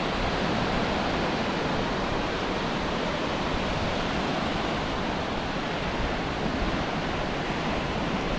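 Steady rush of small waves breaking and washing up a sandy beach, an even noise with no distinct events.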